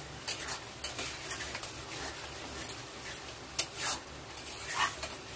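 Metal spatula stirring thick chilli chicken gravy in a metal kadai, with irregular scrapes and clinks against the pan; the loudest strokes come a little after halfway.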